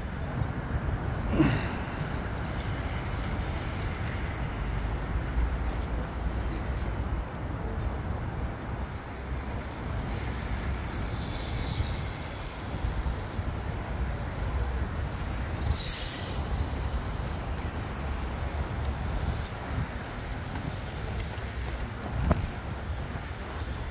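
Steady low outdoor street rumble with a hiss over it, broken by three brief sharp sounds: one about a second and a half in, one midway, and one near the end.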